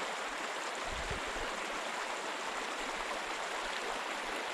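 Small mountain creek flowing, a steady rush of water over rocks.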